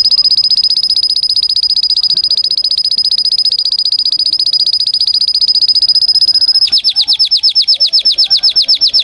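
Domestic canary singing: a long, very fast trill held on one high pitch, changing about two-thirds of the way through to a slower trill of short falling notes, about ten a second.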